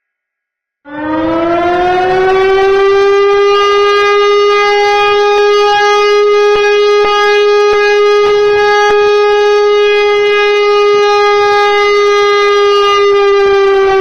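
A siren sounds after a short silence: it comes in loud about a second in, rises briefly in pitch, then holds one steady note with many overtones.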